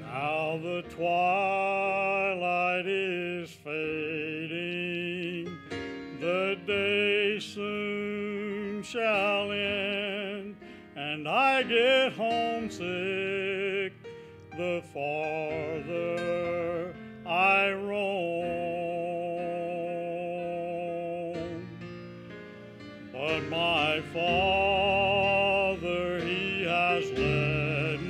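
A man singing a slow gospel song solo in a full voice with wide vibrato, in long held phrases over quiet instrumental accompaniment.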